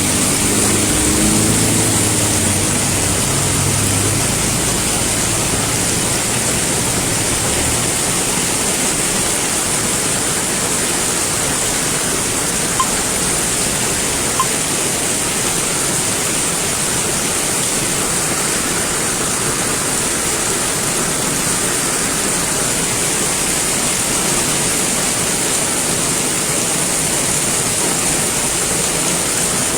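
Heavy rain pouring down in a steady hiss during a thunderstorm. A vehicle's engine is heard at the start and fades out within the first few seconds.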